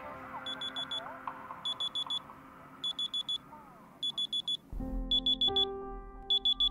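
Electronic alarm clock beeping in groups of four quick high beeps, a group a little more than once a second, over soft music that fades out; held music chords come in about two-thirds of the way through.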